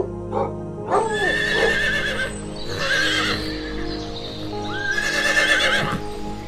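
A horse whinnies twice, each a long, wavering high call of about two seconds, over background music with held notes. A short dog bark comes about a second in.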